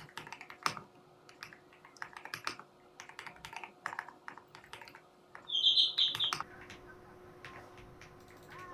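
Kreo Swarm wireless mechanical keyboard being typed on: a quick, uneven run of key clacks. About five and a half seconds in, a short high-pitched chirp, the loudest sound. Then only a few scattered clicks.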